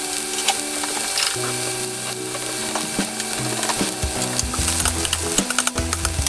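Sliced onions sizzling and crackling in hot oil in a stainless steel pan: a steady hiss full of small pops, over background music.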